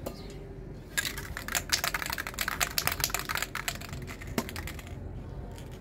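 Aerosol spray paint can being shaken, its mixing ball rattling in a fast run of sharp clicks for about three seconds, followed a moment later by a single click.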